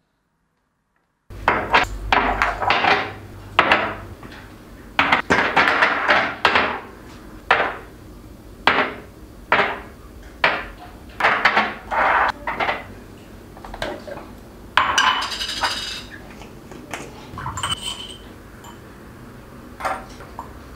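Kitchen clatter: dishes, utensils and containers being handled and set down, a busy string of knocks and clinks, some ringing, starting abruptly after about a second of silence.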